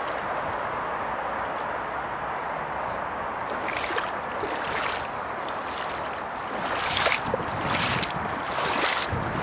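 Steady outdoor hiss, then from about four seconds in, footsteps on waterlogged ground, about one a second with a pause in the middle.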